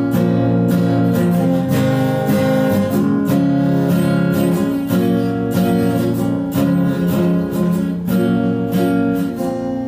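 Background music: an acoustic guitar strumming chords at a steady pace, getting softer near the end.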